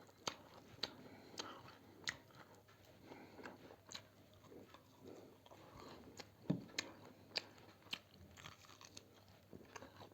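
A person chewing a mouthful of chicken thukpa close to the microphone, with faint wet mouth clicks every half second or so and one dull thump about six and a half seconds in.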